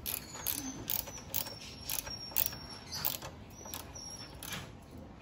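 Hand socket ratchet clicking in short strokes, about two a second, while a bolt is tightened.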